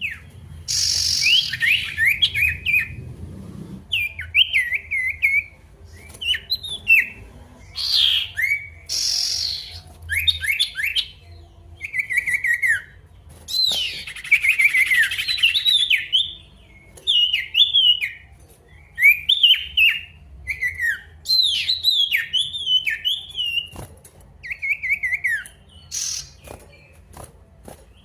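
Male sirtu songbird in full song: short, quick phrases of rising and falling chirped whistles, repeated with short pauses and broken now and then by brief harsh notes. This is the bold 'gacor' song of a bird calling out a rival, used to set off quiet birds.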